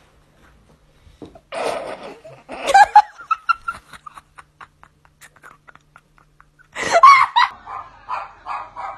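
People laughing in several loud bursts, starting about a second in.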